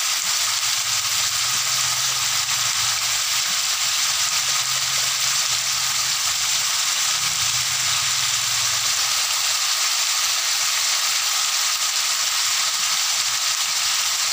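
Cubed potatoes, carrots and bell peppers sizzling steadily in hot oil in a wok, frying until they brown.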